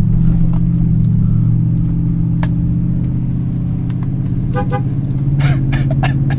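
Car driving, its engine and road noise making a steady low drone inside the cabin, with a brief pulsed toot of the car horn about four and a half seconds in.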